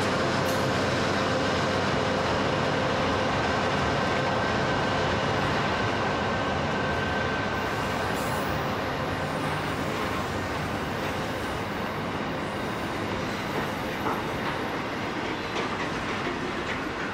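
A long container freight train rolling past, its wagon wheels rumbling steadily on the rails. A steady whine fades out about halfway through as the diesel locomotives draw away, and a few wheel clicks over rail joints come near the end.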